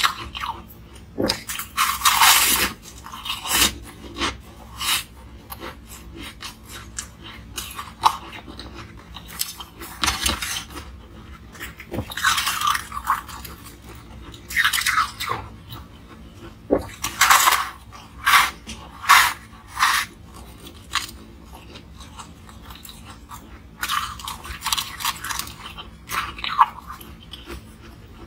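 Close-up biting and crunching of a block of frozen coloured ice, chewed with the mouth. The crunches come in irregular clusters of sharp cracks, with quieter chewing between them.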